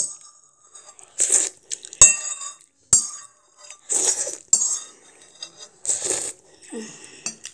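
Metal spoon clinking and scraping against a ceramic bowl as sauce is scooped up, with a few sharp clinks, between short slurps of sauce from the spoon.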